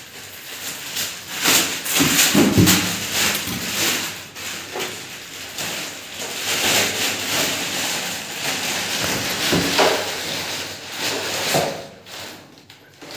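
Plastic wrapping crinkling and rustling in irregular bursts as it is pulled off a new electric water heater, dying down near the end.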